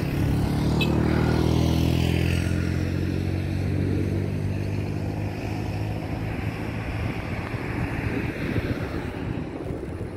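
Engine drone: a low, steady hum that comes in sharply, is loudest over the first few seconds and then slowly fades, with a fainter higher whine above it.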